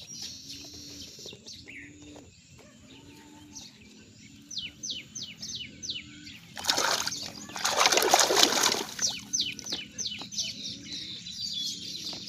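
Bird chirping in runs of quick falling chirps, about three a second, with a burst of water splashing around the middle.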